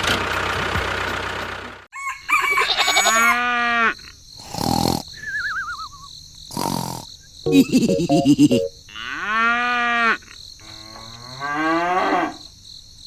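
A loud hiss of noise for about two seconds, then a series of about four long, drawn-out animal calls rising and falling in pitch, broken by two short noisy bursts and a brief wobbly falling tone.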